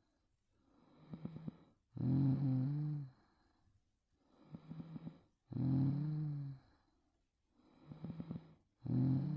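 A sleeping young woman snoring in a steady rhythm, one breath about every three and a half seconds. Each in-breath is a rattling, fluttering snore. Each out-breath is louder, with a steady low pitched tone.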